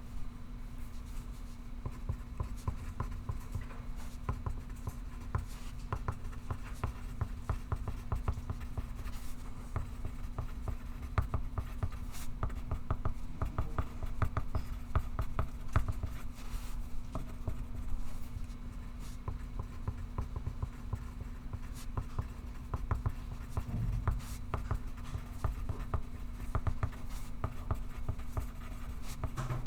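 Pencil writing on paper: a continuous run of quick scratching strokes, over a steady low hum.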